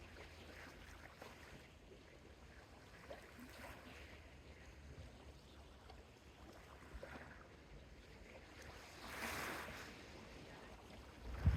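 Soft Mediterranean sea waves lapping on a small beach, with one wave washing in more strongly about nine seconds in. A brief low thump comes right at the end.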